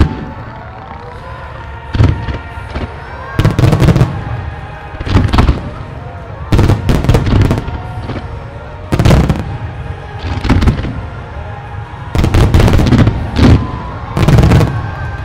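Aerial firework shells bursting in a long, irregular string of booms and sharp cracks, about a dozen over the span, some in quick doubles. Music from the show plays underneath.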